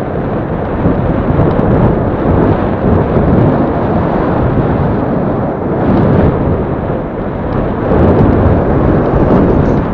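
Wind buffeting the microphone of a handlebar-mounted action camera on a moving bicycle: a loud, steady, low rumble that swells a little near the end.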